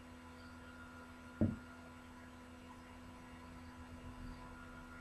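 Low steady electrical hum with a faint background hiss, broken once about a second and a half in by a single short low thump.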